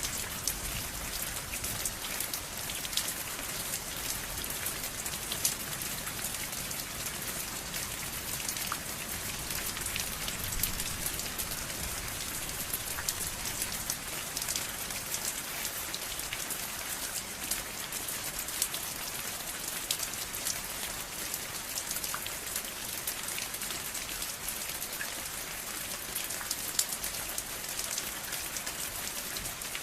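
Steady rain falling on a surface: a constant hiss with many fine, crisp drop ticks.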